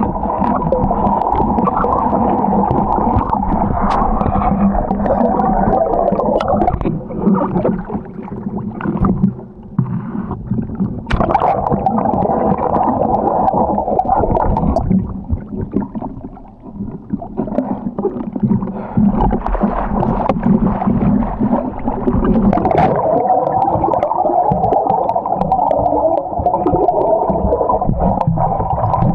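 Muffled underwater noise from a submerged camera: a continuous low rumble and gurgling of water, dipping briefly twice.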